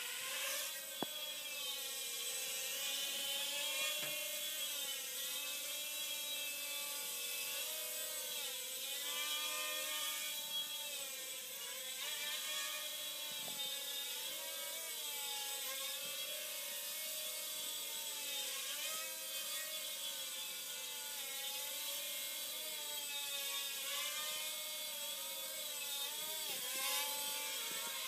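Blade Nano QX micro quadcopter flying, its four small electric motors and propellers giving a steady whine whose pitch wavers up and down constantly as the throttle is worked to hold altitude.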